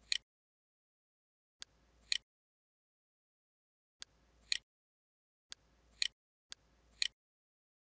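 Computer mouse button clicking five times, a second or two apart, each sharp click with a fainter tick about half a second before it.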